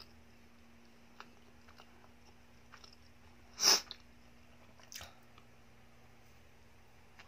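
Close-miked bite into a Dunkin' chocolate-glazed donut: one loud, short bite about halfway through, then a softer mouth sound about a second later, with a few faint clicks in between.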